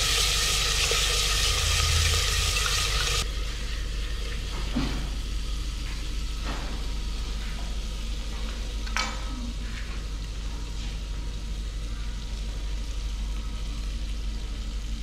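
Spiced tomato-and-onion masala sizzling in hot oil in a clay handi as it is stirred with a spatula, cutting off abruptly about three seconds in. After that a quieter background with a few scattered knocks.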